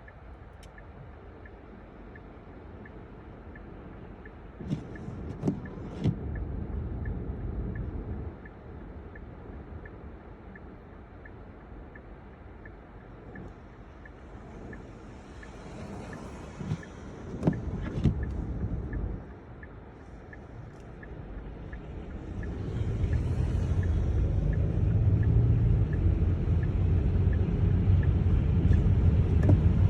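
Car driving on a snowy road, heard from inside the cabin: low engine and road rumble that swells noticeably in the last third as the car picks up speed. A few sharp knocks come in twos and threes early on and again midway, and a faint regular ticking runs underneath, a little under twice a second.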